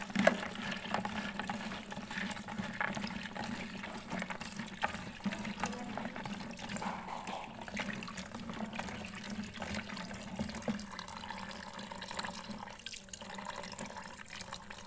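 Tap water running into a plastic tub of peeled shallots and garlic in a stainless steel sink. A hand stirs and rubs the pieces, giving a steady splashing with many small clicks and knocks.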